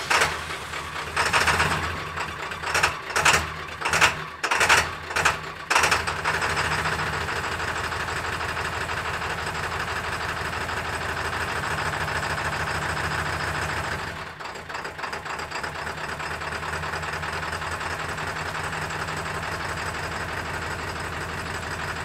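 Ford F550's 7.3 Powerstroke turbo-diesel V8 running just after a cold start: it surges about six times in the first six seconds, then settles into a steady diesel idle that drops slightly about 14 seconds in.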